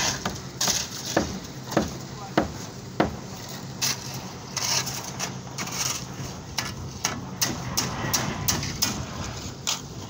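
Shovels and hand tools knocking and scraping as concrete is mixed by hand on a building site. For about the first three seconds there are sharp knocks roughly every half second, and later a quicker clatter of knocks, with people talking in the background.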